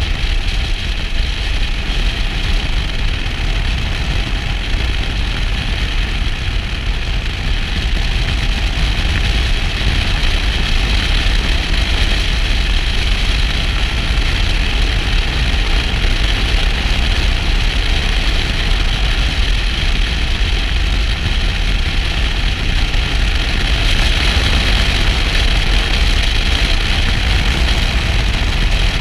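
Motorcycle riding at steady road speed: a continuous rush of wind on the microphone with the engine and tyre noise underneath, without pauses or sudden changes.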